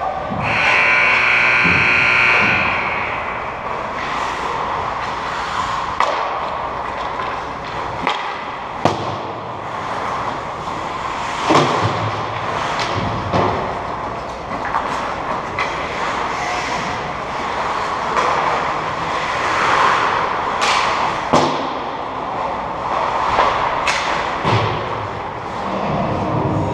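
Ice hockey play in an indoor rink: skates scraping across the ice, with sharp clacks and thuds of sticks, puck and boards scattered throughout. A high, steady sound lasts about two seconds near the start.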